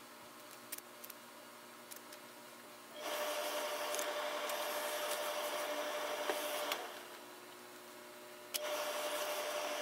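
Tailor's steam-pressing equipment running with a steady hiss and a hum, switched on suddenly about three seconds in, off shortly before seven seconds, and on again about a second and a half later. Before it, faint handling of cloth on the table.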